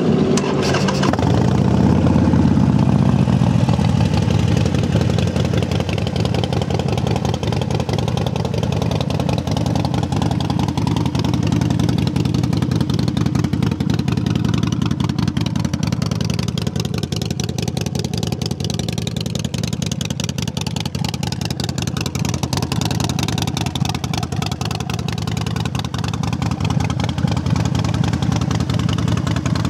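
Harley-Davidson Sportster 1200 Forty-Eight's air-cooled V-twin running loud through its exhaust. It swells in the first few seconds, as if just started and blipped, then settles into a steady idle.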